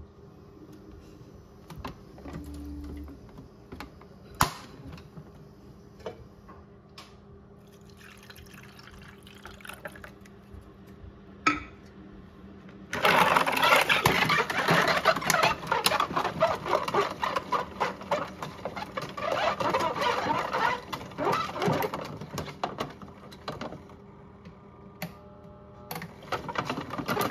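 Water rushing into the drum of a modified Miele toy washing machine, starting suddenly about halfway through and lasting about ten seconds. Before it there are a few sharp clicks.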